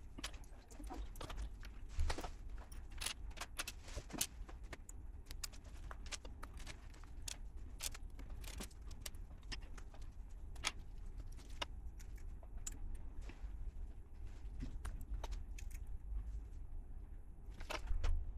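Small plastic LEGO pieces clicking and clattering as they are handled and pressed together, a few sharp irregular clicks a second, over a steady low rumble.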